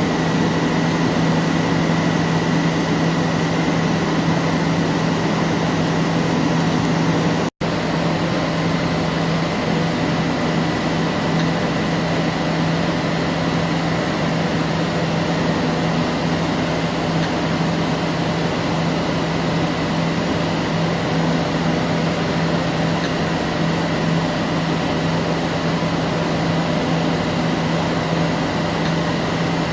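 SAFOP Leonard 70 CNC-B heavy CNC lathe running steadily: an even machine hum with a constant low tone. It cuts out for an instant about seven and a half seconds in.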